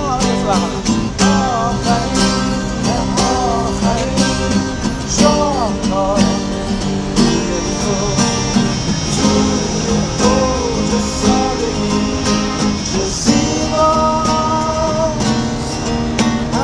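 Acoustic guitars strumming chords under a melodica carrying the melody, played live by a small street band.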